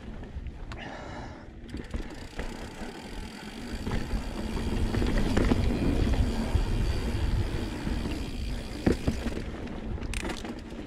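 Santa Cruz Blur full-suspension cross-country mountain bike rolling fast down a dirt singletrack: steady tyre rumble on the dirt with the bike rattling over roots and bumps, growing louder in the middle, and a couple of sharp knocks near the end.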